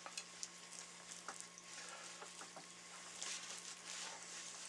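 Gloved hands rubbing liquid tanning agent into a wet animal hide: faint, soft wet rubbing with small scattered clicks and crackles, over a steady faint hum.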